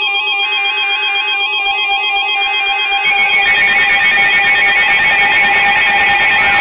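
Emergency alert tones from weather alert radio receivers: a two-tone alarm warbling back and forth, joined about three seconds in by more alarm sound that fills out and grows louder, sounding for an incoming tornado warning.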